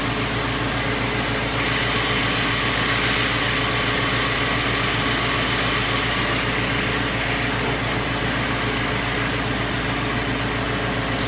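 Doosan PUMA 240MB CNC lathe running its live tooling under power: a steady machine hum, with a brighter hiss coming in about a second and a half in and easing off past the middle.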